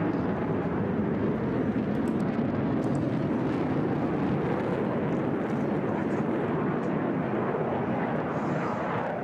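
Jet noise from a HAL Tejas fighter's GE F404 turbofan as it flies a high-rate turn: a steady rushing sound that eases slightly near the end.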